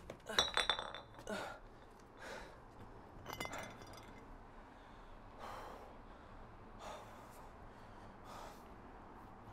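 A man gasping and breathing hard in distress: strained, partly voiced gasps in the first second and again about three and a half seconds in, then slower, quieter breaths.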